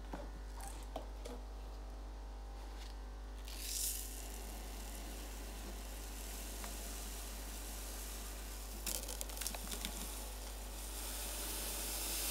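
Water spraying down onto lava rock and gravel in an unfilled aquarium: a hiss that swells briefly about four seconds in and again near the end, with a few small clicks and patters in between. A steady low hum runs underneath.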